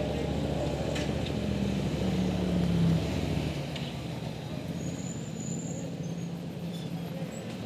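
Racing motorcycle engine running at low revs as the bike rolls through the pit lane, the pitch rising briefly about two seconds in, then dropping to a quieter idle about three and a half seconds in.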